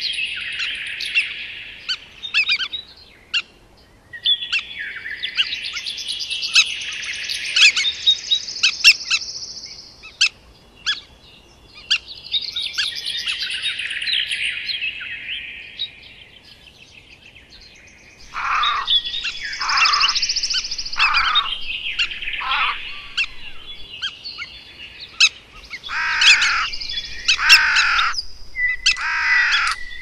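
Several songbirds singing and chirping together in busy bursts, with short lulls between. In the second half, a run of loud calls that each slide steeply downward in pitch.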